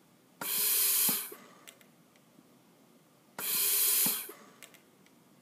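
Bird Mark 8 pneumatic respirator delivering two machine breaths about three seconds apart into a test lung. Each breath starts with a click, hisses with gas flow for just under a second, and ends with a click as it cycles off, followed by a few faint ticks. The flow rate is set at 25, giving an inspiratory time of about one second.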